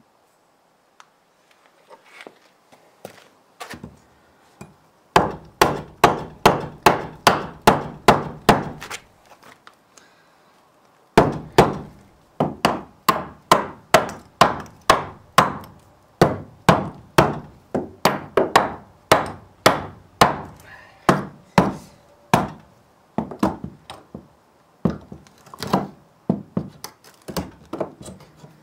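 Hammer blows on a wooden block to knock it loose. A few light taps come first, then hard, evenly paced strikes about two to three a second in two long runs, broken by a pause of about two seconds near the middle.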